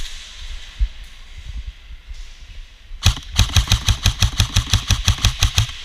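An airsoft electric rifle firing a fast string of shots, about seven a second, for nearly three seconds starting about three seconds in. Before that there are only a few faint thumps.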